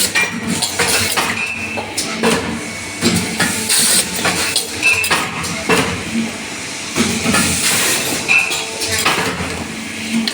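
JBZ 600 hydraulic paper plate machine running with its double die, forming paper dishes and trays: repeated metallic clanks and knocks, with short hisses between them.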